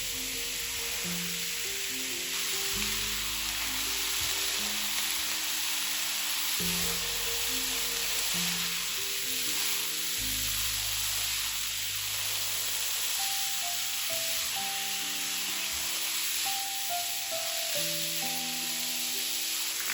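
Food frying in a pan, a steady sizzle, with background music playing over it.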